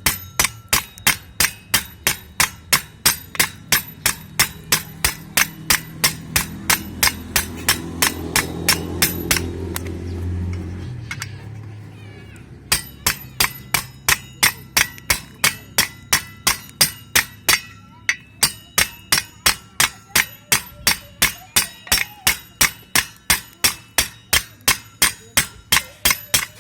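Steel hammer striking the rivets of a tuk-tuk clutch disc hub, peening them down by hand: sharp ringing metal blows at about two a second, pausing briefly about eleven seconds in before going on. A low drone swells and fades under the blows in the first half.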